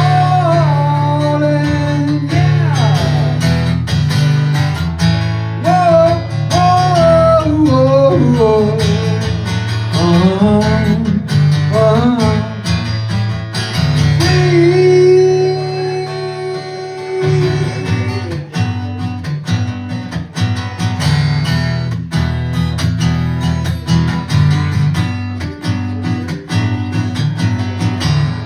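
Live acoustic folk-rock music in an instrumental break: steady acoustic guitar strumming under a bending lead melody, which holds one long note about halfway through.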